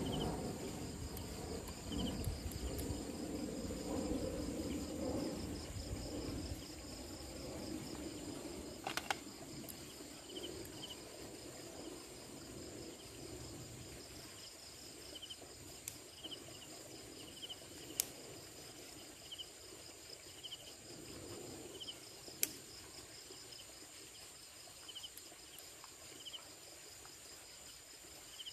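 Night insects, crickets, chirping steadily: short chirps about once a second over a continuous high trill. Soft rustling of hands working a cloth in the first several seconds, and a few sharp clicks.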